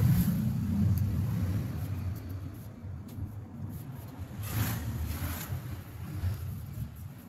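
A low rumble, loudest at the start and fading away, with two brief rustles about halfway through as hands slide over the plastic backlight diffuser sheet of an LED TV.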